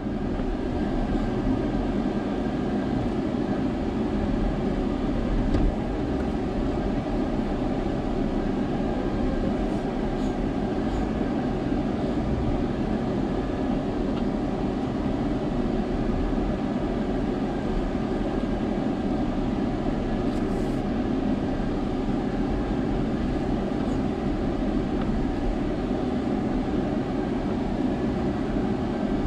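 Jeep Gladiator crawling over rock ledges off-road, its engine and drivetrain running in a steady, unbroken rumble.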